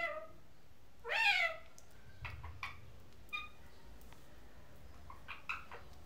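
Rose-ringed parakeet calling: a short call at the start, a loud call about a second in that rises then falls in pitch, then a scattering of short, clipped calls.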